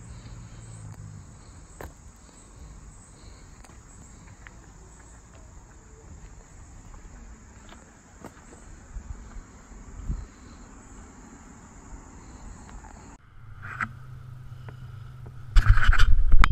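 A steady high-pitched insect chorus with a few faint clicks. About thirteen seconds in it gives way to a low steady hum from the Juiced RipCurrent S e-bike's electric hub motor, carried through a metal camera mount, with a loud burst of noise near the end.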